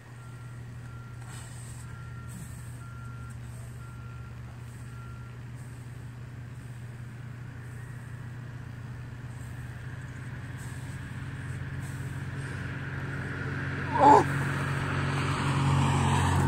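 Highway traffic with a heavy truck's engine drone, growing louder as the truck approaches toward the end. There is a brief loud pitched sound about fourteen seconds in.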